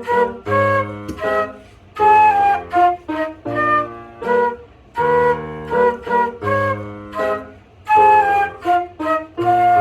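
Music: a flute playing a melody in short, separated notes over lower accompanying notes.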